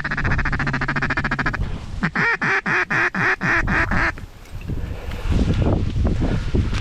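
Duck quacking in a mallard hen's pattern: a fast rattling chatter, then a run of about eight quacks falling in pitch. Wind rumbles on the microphone near the end.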